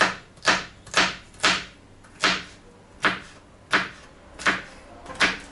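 Kitchen knife slicing a pepper into strips on a plastic cutting board: a steady run of about nine sharp knife strikes on the board, roughly two a second at first, spacing out slightly after a couple of seconds.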